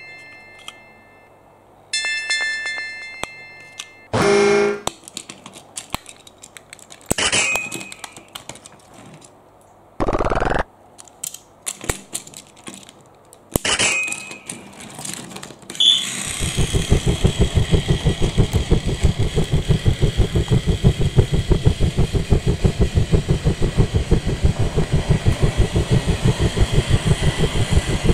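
Plastic clicks and taps of toy wagons and pieces being handled, with a short chime near the start. About halfway through, a battery-powered Plarail toy train starts running on its plastic track with a steady, rapid clatter.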